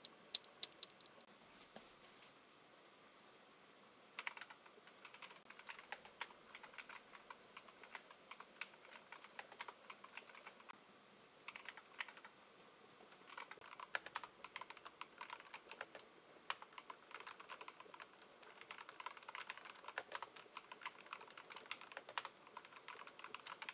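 Typing on an Akko 5108B mechanical keyboard: fast runs of light key clicks with short pauses between them.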